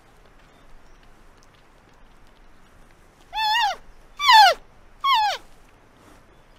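Giant panda calling: three short high-pitched calls in quick succession, starting a little over three seconds in. The first rises and falls, and the other two drop in pitch.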